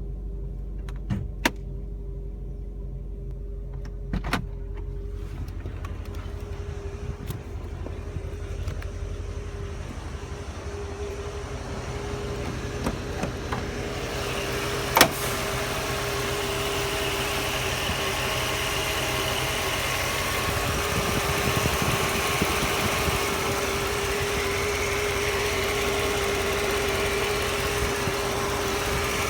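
A car running, with a steady low rumble and a constant whine, and a few sharp clicks, the loudest about halfway through; the sound grows louder from about halfway. The owner calls this a strange noise.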